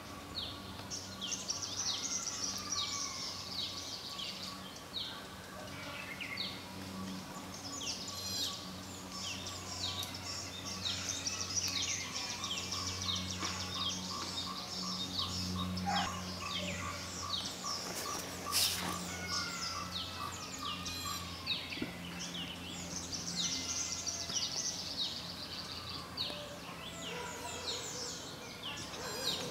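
Outdoor bird chorus: many birds chirping with short, high, falling notes, over a low steady hum. One sharp click stands out about two-thirds of the way through.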